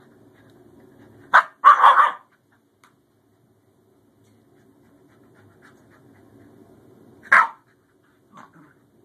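Scottish terriers barking at each other in rough play: a short sharp bark followed at once by a longer one about a second and a half in, then another sharp bark near the end. A faint low growl runs between the barks, swelling before the last one.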